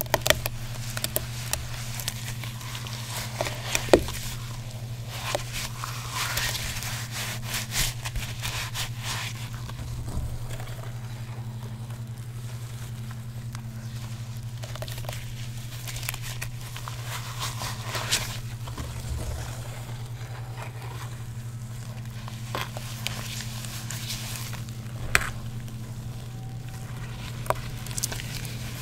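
Water-soaked gym chalk crumbled and crushed by hand, crackling and scraping, with a few sharp snaps. A steady low hum runs underneath.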